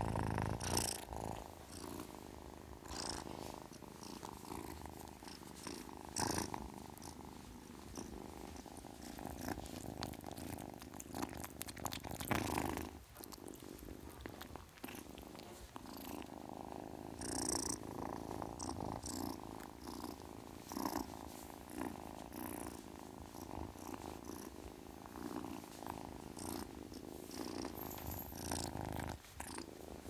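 A kitten purring close up: a continuous low rumble that breaks off briefly about 13 seconds in and again near the end.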